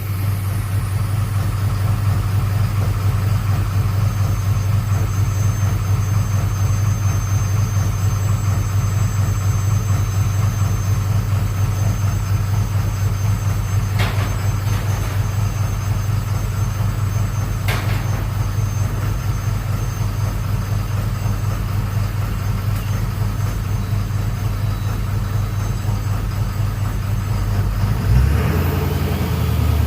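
Ford 6.7 Power Stroke V8 turbodiesel idling steadily on its first start after a fuel-system repair (new CP4 pump and injector), running smooth with no rod knock as far as the owner can tell. Two sharp clicks come about halfway through, and the engine note shifts near the end.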